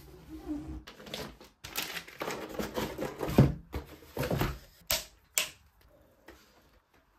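Cardboard box and plastic packaging being handled, opened and rustled as an RC car kit is unboxed: irregular rustling and clattering that cuts off and restarts abruptly several times, dying away near the end.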